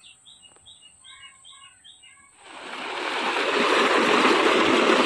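A small bird chirps in quick, short repeated notes. About halfway through, the heavy, steady rush of a tubewell's outlet pipe pouring water into a concrete tank swells in and becomes much the loudest sound.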